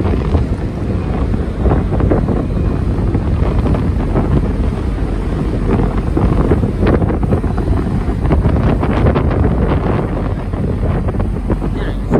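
Wind buffeting the microphone over the low, steady rumble of the Sarubia Maru passenger ferry's engines and propeller wash as the ship pulls away from the pier.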